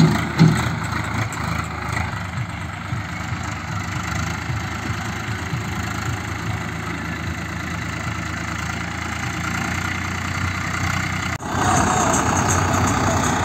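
Farm tractor engines running steadily while the tractors drag rear leveling blades through sandy soil. The sound breaks off about eleven seconds in and comes back louder and closer.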